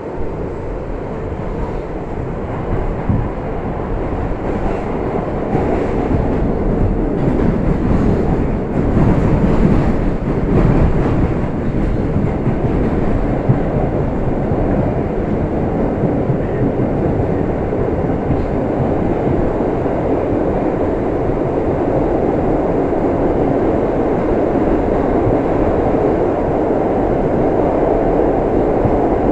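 R62A New York City subway train running: a steady rail rumble. From about four seconds in it has a rattling clatter for several seconds, then settles into an even roar.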